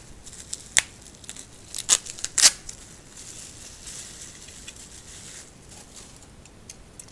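Plastic bubble wrap crinkling and rustling as it is unwrapped from a model locomotive, with a few sharp crackles and snaps in the first couple of seconds, then softer rustling.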